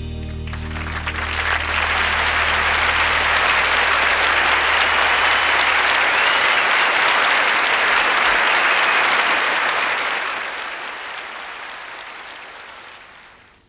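Studio audience applauding at the end of a song, swelling within the first couple of seconds and fading away near the end. The song's last low chord dies away under the applause in the first few seconds.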